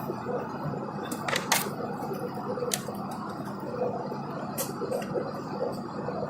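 Steady hum and rush of an airliner's engines and airflow heard inside the passenger cabin in flight, with a few sharp clicks during the first few seconds.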